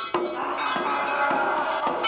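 Theatre music of struck metallic percussion: several sharp strikes, each followed by ringing tones.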